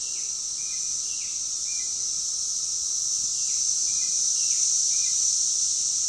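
Dense, steady, high-pitched chorus of Brood X periodical cicadas singing. A shorter, lower chirping call repeats about twice a second over it.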